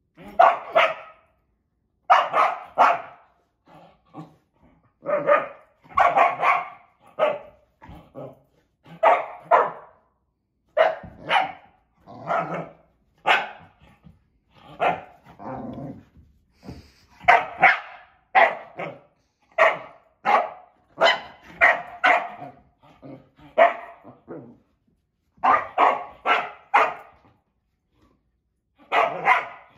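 Nova Scotia duck tolling retriever barking at a treat-filled bottle she is trying to get pellets out of: loud, quick barks in runs of two to four, with short pauses between runs.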